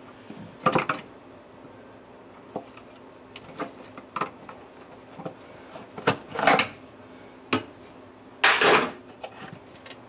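Scattered plastic clicks, knocks and scrapes as the plastic cover assembly over a KitchenAid dishwasher's food chopper is pried loose with a screwdriver and popped out of the tub floor. The loudest, a short scrape, comes near the end.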